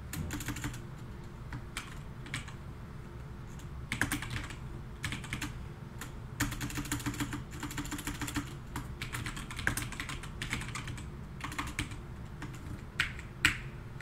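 Typing on a computer keyboard: clusters of key clicks broken by short pauses, with a few sharper clicks near the end.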